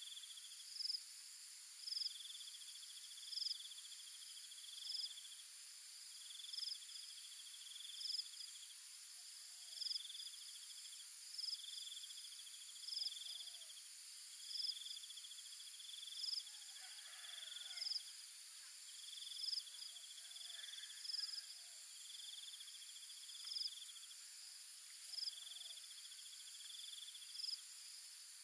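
Insects calling in a steady, repeating pattern. A pulsed trill about a second long alternates with a sharp, higher chirp roughly every one and a half seconds, over a continuous high-pitched insect drone.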